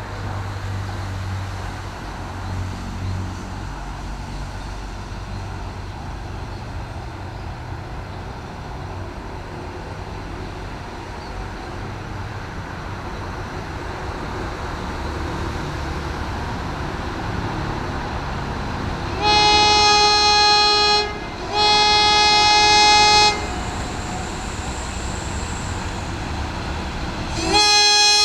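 Shrill horn of CC 201 diesel-electric locomotive CC 201 92 04, sounded as the train comes through the station. First a rumble that slowly grows louder, then two long blasts of about two seconds each with a short gap between them. A third blast begins near the end.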